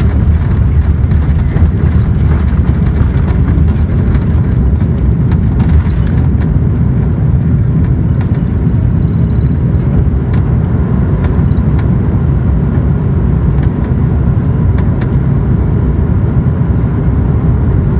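Steady, loud low roar of an Airbus A330-300's Rolls-Royce Trent 700 jet engines and airflow during takeoff.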